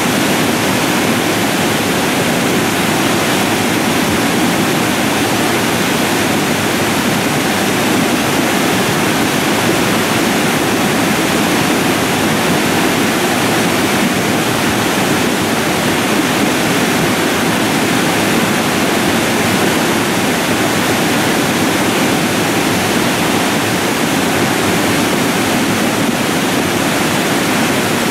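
Debris flow: a surge of muddy water, mud and stones pouring down a rubble channel, making a loud, steady rushing noise.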